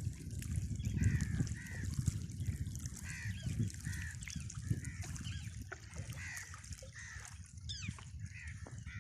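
Birds calling over and over, short arched calls that often come in pairs, over a steady low wash of lake water.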